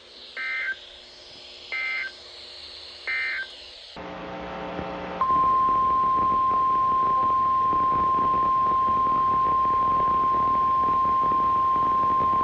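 Three short data bursts of Emergency Alert System (SAME) end-of-message tones, about 1.4 s apart. After a cut comes a brief buzz, then from about five seconds in the steady single-pitch 1050 Hz NOAA Weather Radio warning alarm tone, which announces the next warning.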